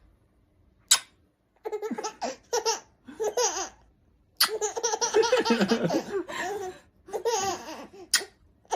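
Baby laughing in a run of high-pitched bursts with short breaks. A single sharp click comes just before the laughter starts.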